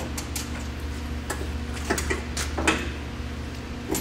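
A steel electrical control box and its fittings being handled, giving a string of light clicks and knocks, most of them bunched in the middle, over a steady low hum.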